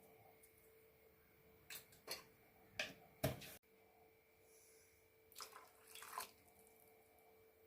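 A few short bursts of water splashing and kitchen handling sounds, clustered in two groups, over a faint steady hum. The sound cuts off abruptly about three and a half seconds in, as at an edit.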